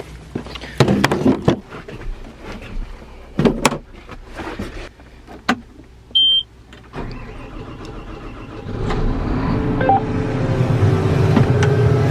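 Scattered knocks and clicks, a short beep about six seconds in, then a vehicle engine running, getting louder from about nine seconds in.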